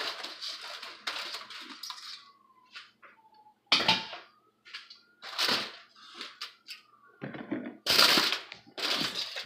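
Broccoli florets tumbling out of a colander onto aluminium foil for about two seconds, then several loud, sharp crinkles of the foil being handled.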